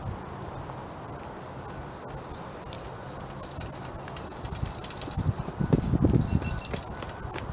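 Insect buzzing: one steady, high, unbroken drone that starts abruptly about a second in. Low rumbles come in underneath it later on.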